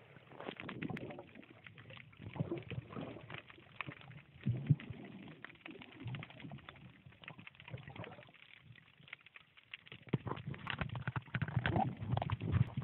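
Muffled underwater sound picked up by a camera held under the sea: irregular crackling clicks and sloshing, with low rumbling surges that grow louder about ten seconds in.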